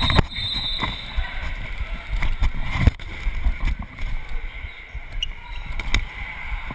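Body-movement noise from a chest-mounted action camera on a dodgeball player, with dull thumps and rubbing throughout. Sharp knocks come now and then, and a short high squeak sounds just after the start.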